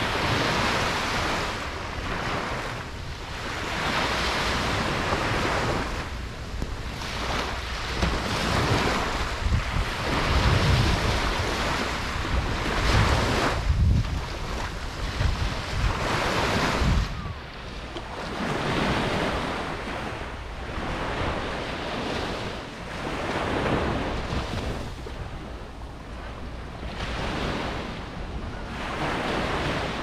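Ocean surf breaking and washing up a beach, swelling and fading every few seconds, loudest in the middle stretch. Wind rumbles on the microphone under the surf.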